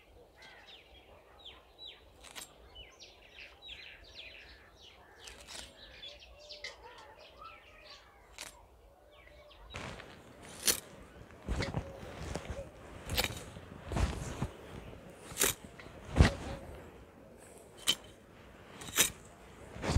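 Small birds chirping in quick falling calls for about the first half. Then, close by, a blade cutting through leafy carrot tops: a sharp crunching stroke about once a second, with the leaves rustling between strokes.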